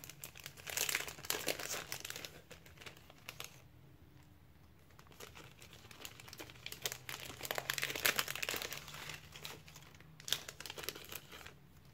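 Clear plastic cello packet crinkling as it is opened and handled, with die-cut cardstock pieces rustling as they are pulled out. It comes in spells, quieter for a couple of seconds around four to six seconds in, with a last short burst near the end.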